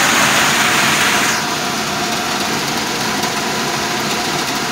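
Vintage belt-driven squirrel-cage blower fan running on its electric motor: a steady rush of air, loud for about the first second and a half and then dropping to a lower, even running sound with a faint steady hum. It has a little vibration, which the owner puts down to a belt that needs tightening and worn bearings.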